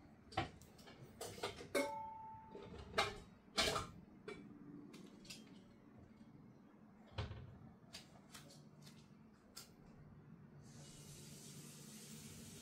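Clicks, taps and knocks from handling a tablet and its packaging, with a short two-tone beep about two seconds in. A steady hiss begins near the end.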